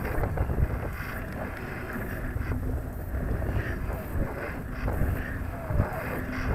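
Wind buffeting the microphone of a camera on a weather balloon's payload in flight: a steady, fluttering low rumble, with a couple of faint short squeaks.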